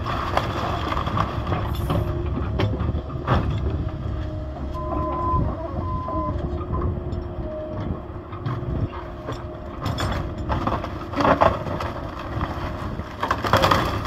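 Excavator's diesel engine running steadily while it works through debris, with several loud clanks and crunches and two short beeps about five seconds in.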